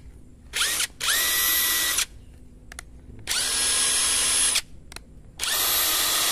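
Dagmara 800 Nm brushless cordless impact wrench run with no load, the anvil spinning free without hammering. A quick blip of the trigger is followed by three runs of about a second or more each, each spinning up quickly to a steady high motor whine.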